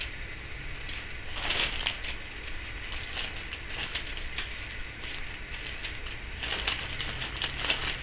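Timneh African grey parrot making quick runs of clicking and crackling sounds, about a second and a half in, again around three to four seconds, and near the end.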